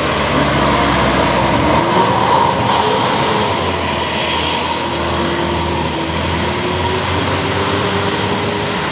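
Buses driving past on a road, with a steady, loud rumble of engines and tyres.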